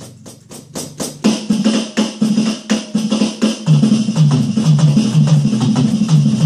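Roland V-Drums electronic drum kit played in a quick, busy groove along with backing music that has a repeating bass line. About a second in, the bass drops out briefly, leaving only drum hits, before the full groove comes back.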